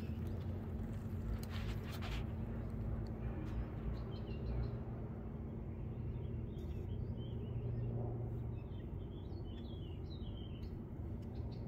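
Small birds chirping in short high notes from about three seconds in until near the end, over a steady low outdoor rumble.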